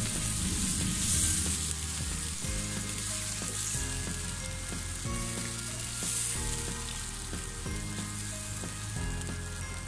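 Potato and tomato curry sizzling and bubbling in a pan with water just added for the gravy, stirred with a wooden spatula. Soft background music with held low notes plays underneath.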